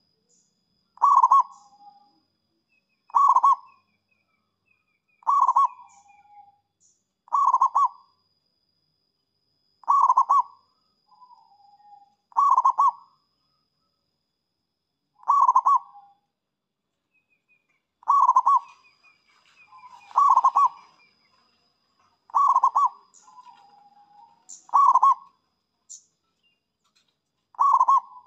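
Zebra dove (perkutut) cooing: a short, stuttering coo repeated about every two seconds, some followed by a softer, lower trailing note.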